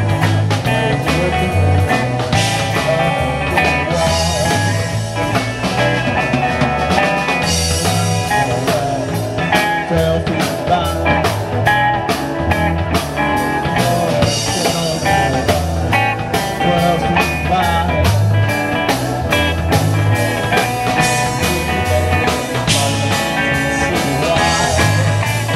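Live blues band playing: electric guitars, keyboard, bass and drum kit on a steady beat.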